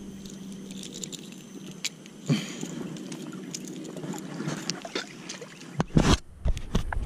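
Handling noise of fishing line and lure being worked by hand: scattered small clicks and ticks with a louder knock a little after two seconds. About six seconds in, a couple of heavy low thumps as the rod is swung to cast.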